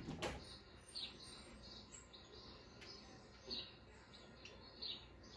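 Faint high chirping squeaks, roughly two a second, from a TV playing a mouse video for cats. Just after the start there is a sharp knock, the cat's paw striking the screen.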